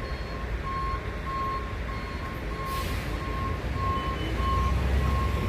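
A truck's reversing alarm beeping at an even pace, about one beep every half second, over the low rumble of its idling engine, with a short hiss about halfway through.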